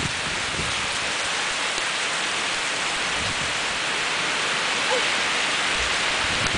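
Windstorm: a steady, even hiss of storm noise that holds at a constant level.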